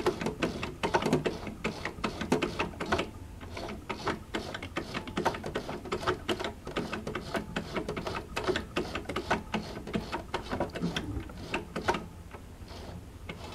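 Jaguar 592 portable sewing machine's mechanism being turned over right after a few drops of oil, ticking and clattering rapidly with no steady motor tone; it stops about twelve seconds in.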